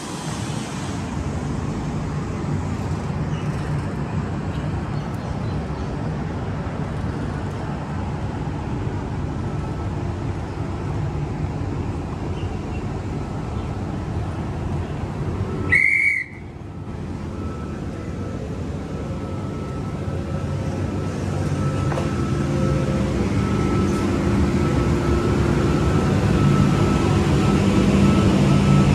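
Steady running noise of a moving vehicle. About sixteen seconds in there is a short, loud, high whistle-like tone. After it the noise gradually builds louder, with a steady hum.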